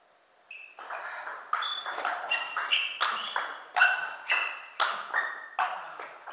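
Table tennis rally: the celluloid ball ticking off rubber paddles and bouncing on the table with a sharp ping, about two hits a second, starting about half a second in with the serve. Each hit rings briefly in the gym hall.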